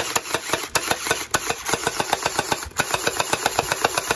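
Electric gel ball blaster (AEG) firing on full auto: its motor-driven gearbox cycles in a fast, even rattle of about ten shots a second.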